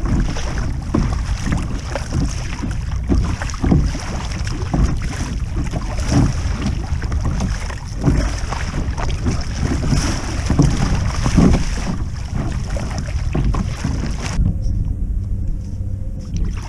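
Double-bladed kayak paddle strokes splashing in the sea, about one stroke a second, over wind rumbling on the microphone. About two seconds before the end the splashing stops and only the low wind rumble remains.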